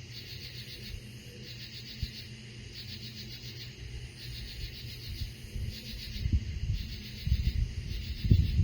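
A chorus of night insects chirping in steady, evenly repeating pulses. From about six seconds in, irregular bursts of low rumble grow louder over it.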